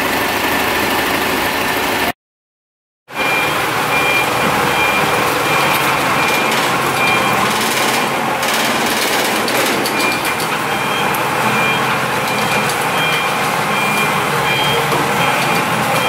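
Forklift engines running under load while carrying a heavy generator set. After a one-second dropout, steady machine noise continues with repeated short, high electronic beeps, typical of a forklift's reversing alarm.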